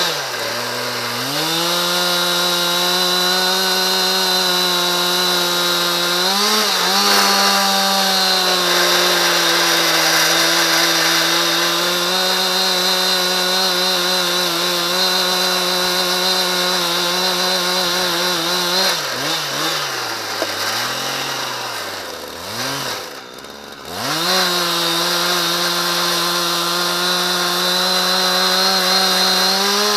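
Husqvarna 372 XPG two-stroke chainsaw in a chainsaw mill, held at high revs and steady in pitch as it rip-cuts a dry, hard ash log lengthwise. About two-thirds of the way in the revs drop and waver low for a few seconds, then climb back up as the cut goes on.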